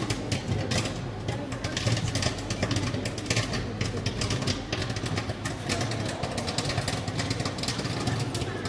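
Popcorn popping in the heated kettle of a popcorn machine: a fast, irregular crackle of pops over a steady low hum.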